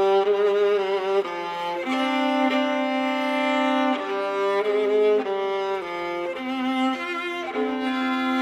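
Solo viola playing a slow, singing line of long held notes with vibrato, moving to a new note every second or two.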